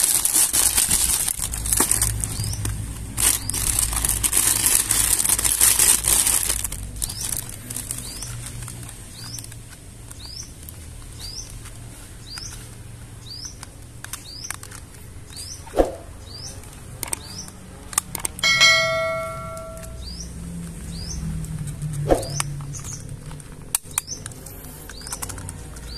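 Clear plastic bag crinkling loudly as a plastic toy lobster is pulled out of it, for about the first six seconds. After that a bird chirps about once a second, with a couple of sharp clicks of hard plastic parts and one brief ringing tone near the end.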